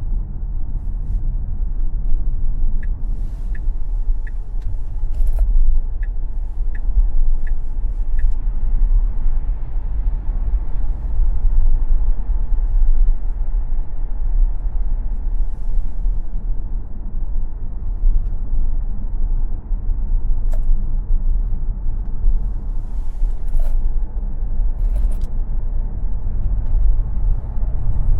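Tesla Model X driven at speed on a racetrack: a steady low rumble of tyre and road noise with no engine note. A short run of faint, evenly spaced high ticks comes a few seconds in.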